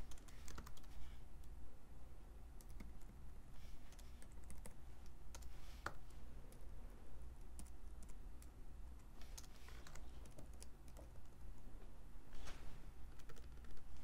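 Typing on a computer keyboard: irregular key clicks coming in short bursts with pauses between, over a low steady hum.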